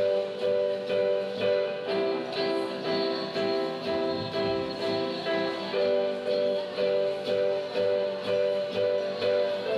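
Two acoustic guitars strummed together in a steady rhythm, about two strums a second, with young female voices singing along.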